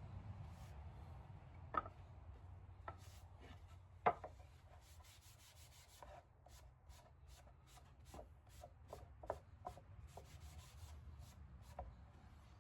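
Light, irregular clicks and knocks with some rubbing, as of wooden furniture being handled, over a steady low hum. Two knocks about two and four seconds in stand out, and the clicks come thicker in the second half.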